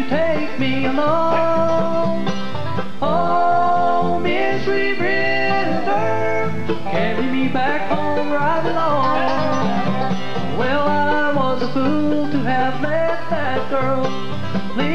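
Bluegrass band playing an instrumental passage on banjo, mandolin and acoustic guitar, with a sliding lead melody line over the picking.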